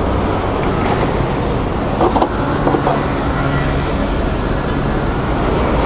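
Heavy Isuzu Giga tanker truck's diesel engine running as the truck creeps forward onto portable axle-weighing pads, over a steady rumble of street traffic. A few short clicks or knocks about two seconds in.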